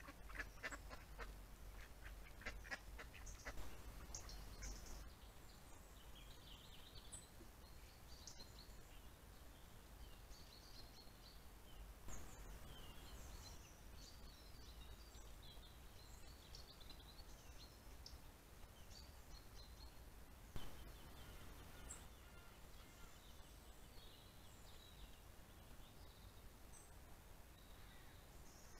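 Faint trail-camera sound: ducks quacking softly in the first few seconds, then scattered faint bird chirps over a steady low hum. Two sharp clicks, about twelve and about twenty seconds in.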